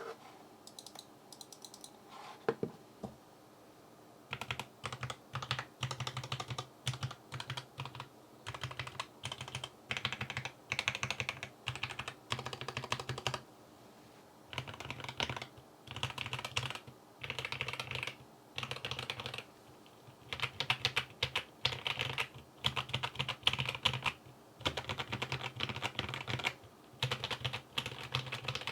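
Typing on a BM65 mechanical keyboard fitted with stock, factory-lubed Gateron CAP V2 Milky Yellow linear switches and cloned 9009 keycaps. It is a sound test of the switches' keystroke clacks. After a few scattered keystrokes, steady typing starts about four seconds in and goes in bursts of a second or two with brief pauses.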